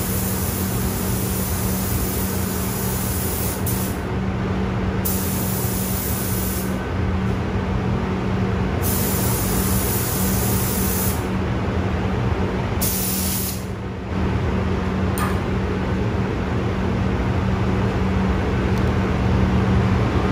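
Gravity-feed compressed-air paint spray gun hissing as paint is sprayed onto a motorcycle fender in passes, the hiss cutting out briefly between trigger pulls several times, over a steady low hum.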